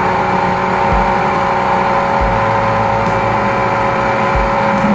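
High-pressure sewer jetter's engine and pump running steadily under load while its hose is worked through a clogged drain line. Its low drone drops out and comes back a few times.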